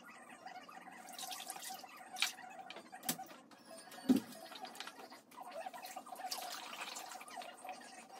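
A chicken being plucked by hand: soft, wet-sounding rustling of feathers pulled in handfuls, with scattered small clicks and one louder knock about four seconds in. A faint steady hum sits underneath.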